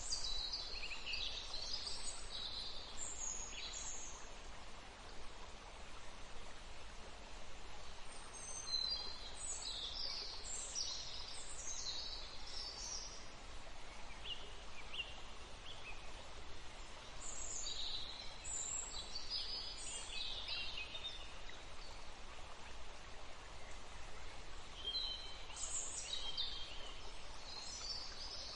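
Songbirds singing in bouts of quick high chirps and trills, a few seconds apart, over the steady rush of a flowing stream.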